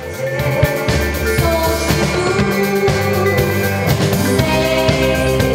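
Band music: a drum kit keeps a steady beat under sustained instrument tones, swelling louder at the start.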